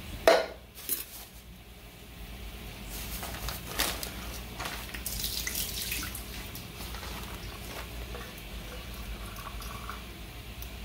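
Pot of water bubbling at the boil with ackee in a mesh strainer set into it. A sharp knock sounds just after the start and a lighter one shortly after.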